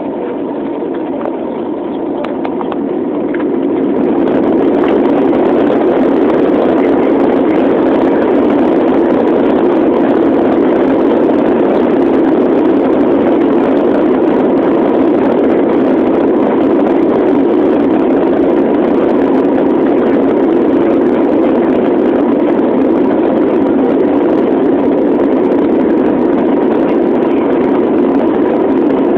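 Jet airliner's engines heard from inside the cabin, swelling over the first few seconds and then holding a steady loud noise with a faint steady whine: the engines at take-off thrust during the take-off roll.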